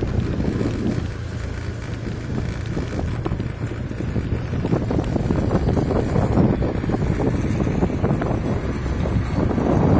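Wind buffeting the microphone of a camera moving along a road, over a steady low vehicle rumble.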